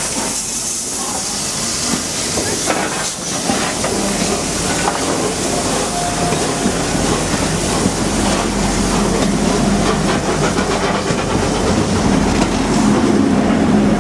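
Peppercorn A1 Pacific steam locomotive 60163 Tornado pulling its train away, steam hissing, as the coaches roll past with wheel clatter over the rail joints. The sound grows slightly louder toward the end.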